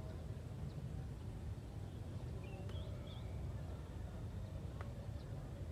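Quiet outdoor ambience: a steady low rumble with a few faint, short bird chirps, most of them near the middle.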